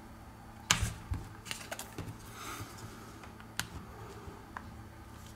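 Light clicks and taps of plastic prying tools, a plastic card and a plastic opening pick, handled against a smartphone's edge and the work surface, with a brief soft rustle around the middle. The sharpest click comes a little under a second in.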